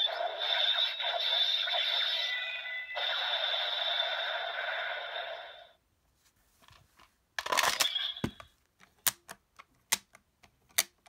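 Electronic sound effects and music from a DX Kamen Rider Wonder Ride Book toy's small speaker, cutting off about six seconds in. A clatter of plastic clicks follows, then about five separate clicks as the plastic toy is handled.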